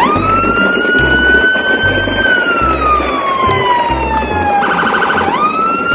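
Emergency-vehicle siren wail: a pitched tone that sweeps up, holds and slowly falls, breaks into a fast warble about five seconds in, then climbs again. A steady bass beat of background music runs underneath.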